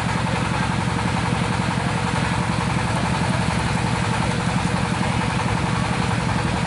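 An engine running steadily at idle close by: a low, even drone with a fast pulse that does not change.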